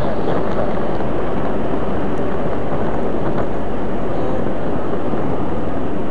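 Cessna 152's four-cylinder engine running, a loud, steady drone.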